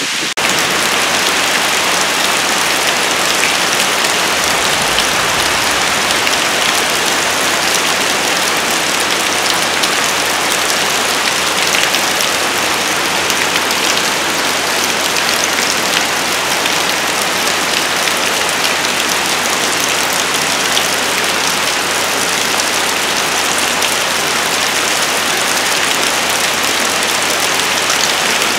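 Heavy rain pouring steadily, a dense, even hiss of drops falling on the ground and vegetation.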